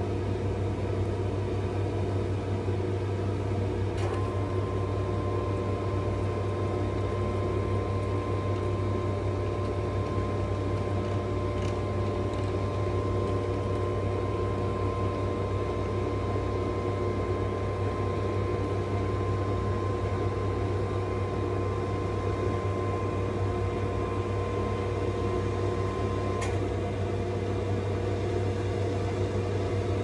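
Steady low hum of cement-loading machinery on a ship's deck. A faint steady whine joins about four seconds in and cuts off with a click near the end.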